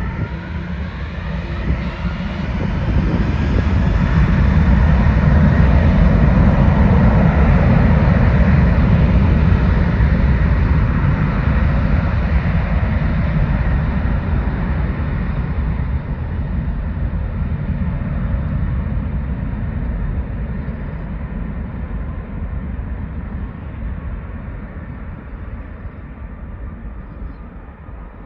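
Boeing 747 freighter's four jet engines spooling up to takeoff power. A rising whine climbs over the first few seconds under a deep rumble that is loudest early in the takeoff roll. The noise then slowly fades as the jet accelerates away down the runway.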